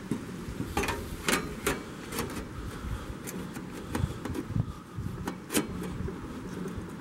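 Handling noise from work on a metal chimney pipe: light clicks and knocks at irregular intervals over a low rumble.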